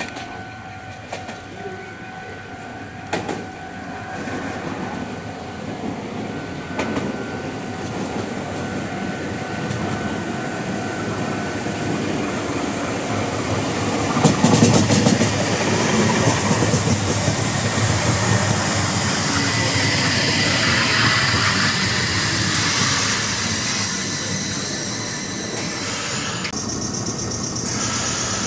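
Meitetsu 100 series electric multiple unit approaching and running past close by: wheels clicking over rail joints, growing louder to a peak about halfway and then staying loud, with a high-pitched whine and squeal near the end.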